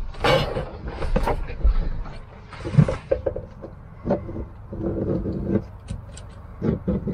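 Irregular knocks, clicks and rustles of someone kneeling and working on a wooden van floor while running a bead of sealant under its edge, with a brief hissy rustle about three seconds in.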